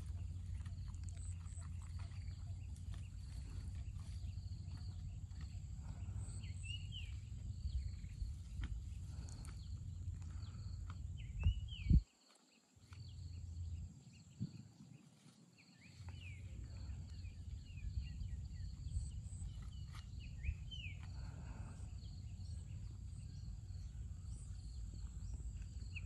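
Outdoor nature ambience: short bird chirps come in pairs every couple of seconds over a steady low rumble and a thin, high, steady insect drone. About halfway through there is a sharp knock, and the low rumble drops out for a few seconds.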